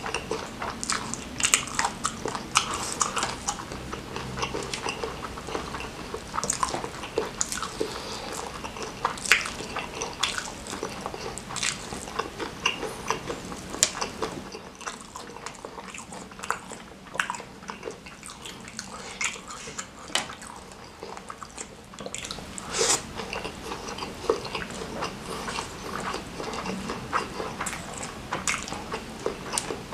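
Close-up mouth sounds of eating Indomie goreng fried noodles and spicy smashed fried chicken: wet chewing, lip smacks and noodles slurped in, as a dense, irregular run of small clicks.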